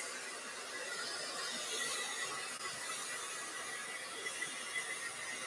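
Steady background hiss with a faint high-pitched whine, and a few faint soft noises about four to five seconds in.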